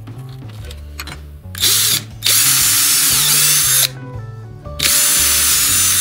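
Electric drill boring holes into a plywood strip, spinning up three times: a brief run, then two longer runs of about a second and a half each. Steady background music runs underneath.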